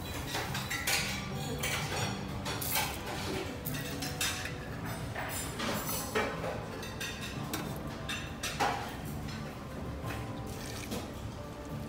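Scattered clinks and scrapes of a metal spoon scooping granola from a glass jar into a ceramic bowl, then the bowl knocking down onto a steel drip tray.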